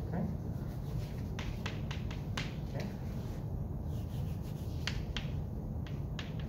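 Chalk writing on a chalkboard: a string of sharp taps and short scratches at irregular intervals as letters and bonds are drawn, over a steady low room hum.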